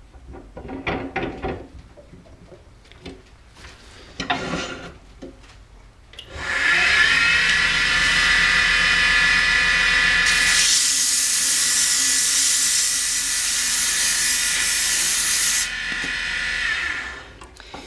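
Knocks and clatter as the dowel is set up in a JET wood lathe, then the lathe motor starts about six seconds in with a rising whine. About four seconds later sandpaper is pressed to the spinning dowel, adding a loud hiss for about five seconds, and the motor winds down near the end.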